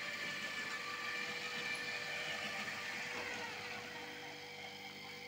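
Motor drive of an electric hose reel running with a steady whine as it winds the spray hose, then slowing with a falling pitch about three seconds in.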